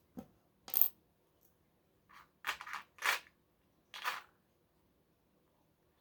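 Small plastic Lego pieces clicking and clattering as they are picked out and set down one at a time, about half a dozen short sharp clicks spaced irregularly.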